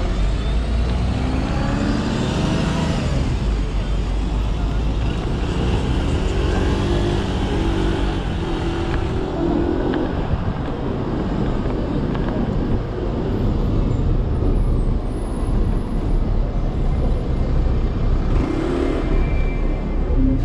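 Ride noise from an electric scooter in city traffic: a steady low rumble of wind and road noise, with motor vehicles passing, one in the first few seconds with a gliding pitch.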